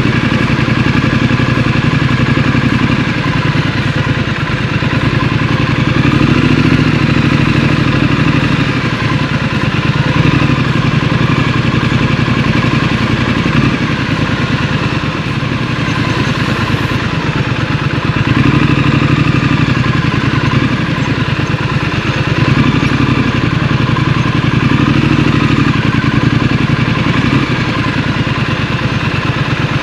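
Scrambler motorcycle engine running while ridden, its note rising and falling again and again as the throttle opens and closes.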